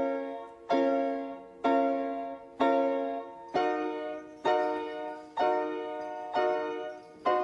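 Piano playing slow chords, one struck about every second and left to ring and fade before the next. The harmony shifts a little past halfway through.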